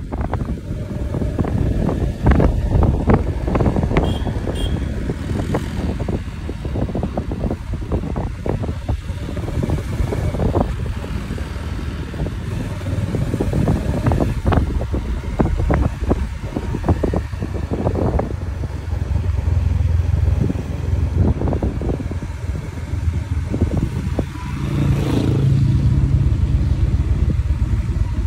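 Riding on a motorcycle or scooter: a steady low engine and road rumble with wind buffeting the microphone and frequent thumps and rattles. A louder engine drone swells near the end.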